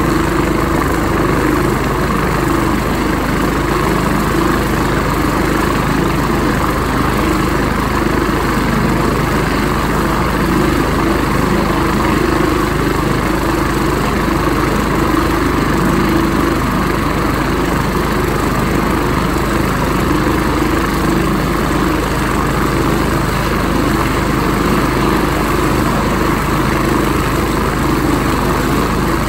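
Air ambulance helicopter running on the ground before take-off, its engines and rotor making a steady, even noise.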